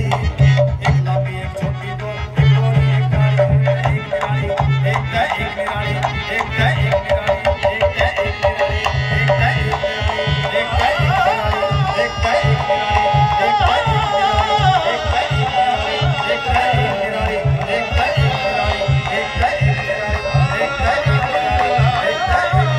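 Live Haryanvi folk dance music: barrel drums beat a steady, driving rhythm while a melody line weaves over them.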